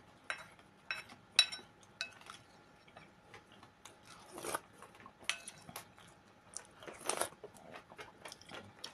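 A person eating soup from a ceramic bowl with a wooden spoon: small knocks and scrapes of the spoon against the bowl, chewing, and two longer sips from the spoon, about four and a half and seven seconds in.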